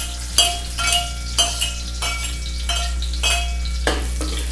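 Metal ladle clinking about seven times against a small plate and the wok as chopped onion is scraped into hot oil and stirred, each strike ringing briefly, over a light sizzle of the onion and garlic frying. A steady low hum runs underneath.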